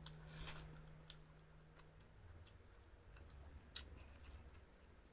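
Quiet chewing and mouth sounds of someone eating, with scattered small clicks and smacks and a short breathy hiss about half a second in. A faint low hum runs under the first two seconds.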